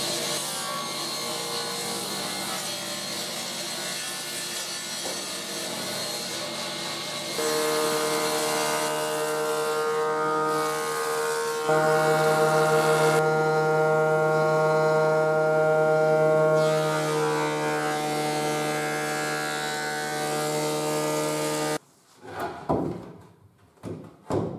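Woodworking machines cutting solid wood: a sliding-table panel saw cutting a board, then a jointer's cutterhead planing a board with a steady whine. The machine noise cuts off suddenly near the end, followed by a few knocks of wooden boards being set down.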